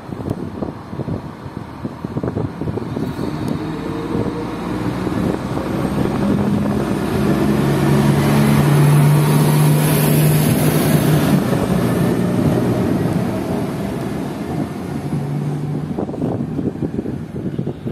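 SA135 diesel railcar pulling away from the platform and passing close, its diesel engine working hard with a faint rising whine as it gathers speed. It is loudest as it goes by, about halfway through, then fades, with some wind on the microphone.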